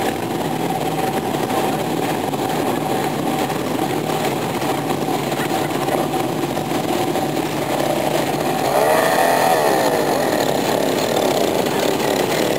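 Several classic motorcycle engines running, with one bike pulling away about two-thirds of the way through, its engine note rising and then falling as it goes past.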